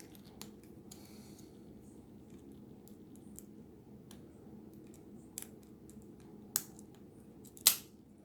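Single-pin picking of a Wolverine 40 mm padlock: faint scraping of the pick inside the keyway, with scattered small clicks as pins are worked and set. A few louder clicks come near the end.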